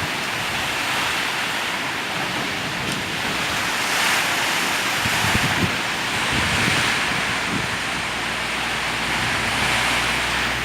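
Heavy storm rain and strong wind: a steady rushing downpour that swells and eases every few seconds with the gusts.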